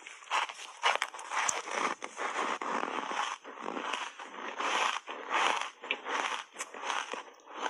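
Ice chunks coated in matcha powder being bitten and chewed, giving a close, crisp crunching about twice a second.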